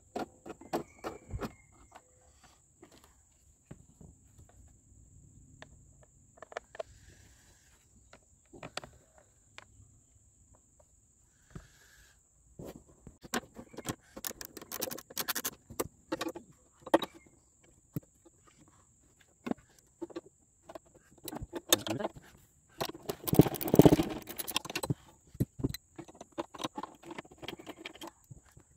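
Ratchet wrench with a 3/8-inch socket clicking in quick runs and clinking on metal as bolts are backed out of a lawn mower's belt cover, the loudest run late on.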